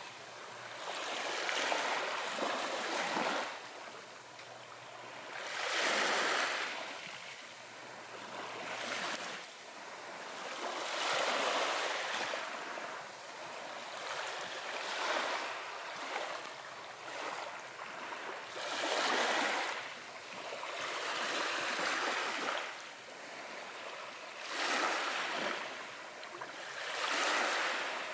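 Ocean waves washing in, a hiss that swells and fades again every few seconds as each wave breaks and runs up.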